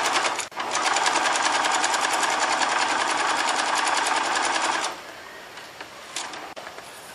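Singer electric sewing machine stitching at speed: a fast, even run of needle strokes with a brief pause about half a second in. It stops about five seconds in, leaving only a few faint clicks.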